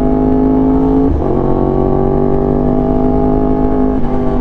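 2019 Yamaha R1's crossplane inline-four through an SC Project exhaust, running under way at cruising speed, its pitch creeping up slowly, with brief breaks in the note about a second in and near the end.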